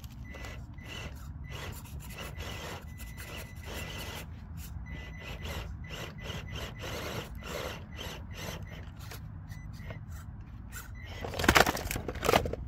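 Traxxas TRX-4M mini crawler working on a steep rock step: a faint steady motor whine under a dense run of small scrapes and clicks as its tyres scrabble against stone, then a louder scraping clatter near the end.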